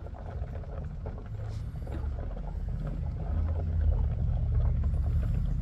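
2015 Jeep Wrangler's 3.6-litre V6 engine running, a low rumble that grows steadily louder; the engine is overheating and boiling over its coolant while the cooling system is being burped.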